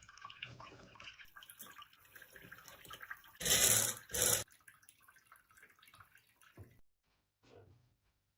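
Two short gushes of running or splashing water, about three and a half seconds in, the first about half a second long and the second briefer. Faint small clicks and knocks come before and after.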